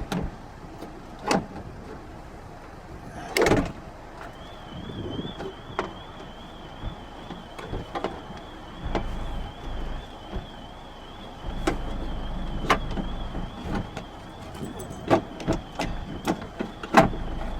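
Scattered knocks and clicks of a car window regulator being worked into the door, with wind buffeting the microphone at times and a faint wavering high tone from about four seconds in.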